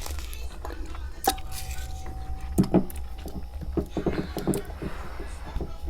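Freezer frost crunching between the teeth: scattered crisp crunches, thickest in two bursts in the middle and second half. A faint steady tone sounds through most of it over a constant low hum.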